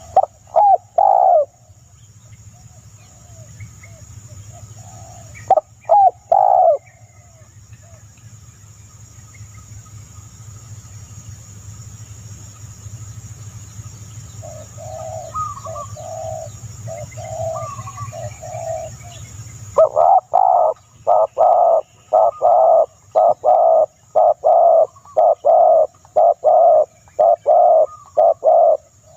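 A dove cooing: short groups of coos near the start and about six seconds in, a softer run of coos in the middle, then a long, fast series of loud coos, about two a second, through the last nine seconds. A steady high hiss runs beneath until about twenty seconds in.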